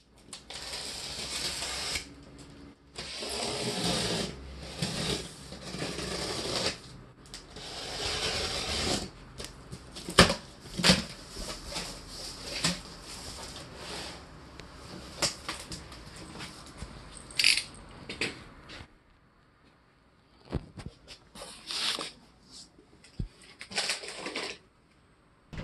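Utility knife cutting the packing tape on a cardboard carton in several strokes of a second or two, then sharp knocks and rustling as the cardboard flaps are opened and the packing is handled.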